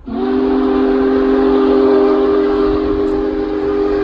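Steam whistle of Union Pacific Big Boy No. 4014 blowing one long blast, a chord of several tones that slides briefly up in pitch as it opens and then holds steady.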